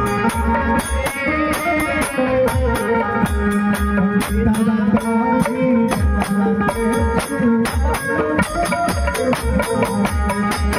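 Live folk wedding-song music: a steady, regular drum beat with rattling, jingling percussion and sustained melodic notes from an accompanying instrument.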